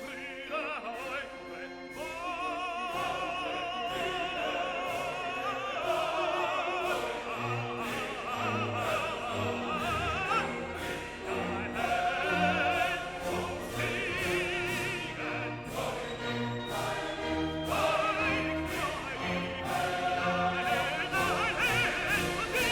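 Background music: operatic singing with strong vibrato over orchestral accompaniment, with a steady beat.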